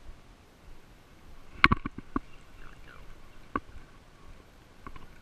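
Sharp clicks and knocks from handling a spinning rod and reel: a quick cluster of four or five about a second and a half in, one more in the middle and a few faint ticks near the end.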